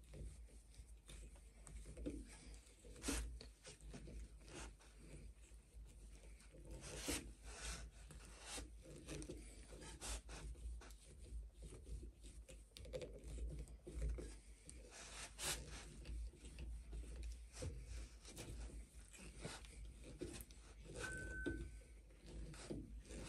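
The blunt awl of a Mikov Stovka 100-NH-7A pocket knife is twisted by hand into a block of soft wood. It makes faint scraping and rubbing with scattered clicks, and the blunt point bores slowly. Near the end there is a brief squeak.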